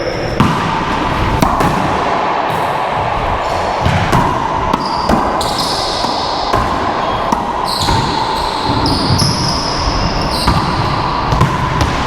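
Racquetball rally: the ball is struck by racquets and smacks off the court walls in about a dozen sharp hits, with short high sneaker squeaks on the court floor between them.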